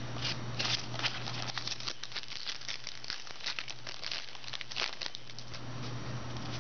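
Trading cards and their packaging being handled, giving crinkling and many light clicks that thin out about five seconds in, over a low steady hum.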